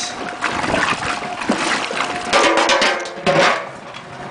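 Antique Easy washing machine's agitator running, churning water and rags with irregular sloshing and splashing.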